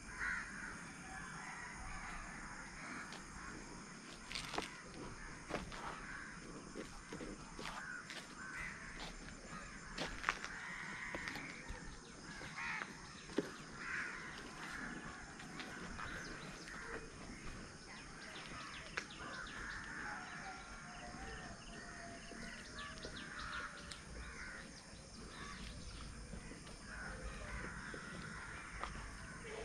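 Crows cawing repeatedly over faint outdoor ambience, with a few sharp clicks.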